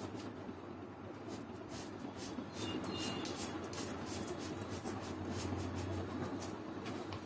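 Felt-tip marker scratching across paper in repeated short back-and-forth colouring strokes, over a steady low hum.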